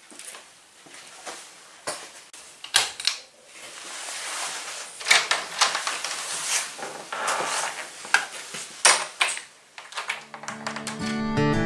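Scattered knocks, clicks and rustles of a person moving about and handling things, with the snap of a wall light switch being flipped off. Acoustic guitar strumming begins near the end.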